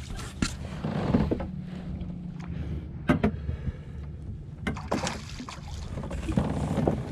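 Clicks and knocks of fishing gear being handled aboard a kayak, over a low steady rumble of wind and water against the hull.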